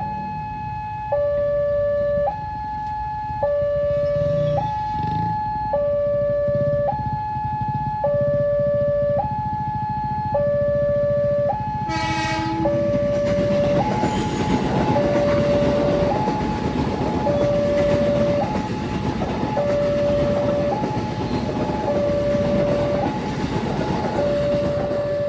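Railway level-crossing warning alarm sounding continuously, alternating between a low and a high tone, each held about a second. About halfway through a short horn blast sounds, and a train passes, its rail noise rising under the alarm.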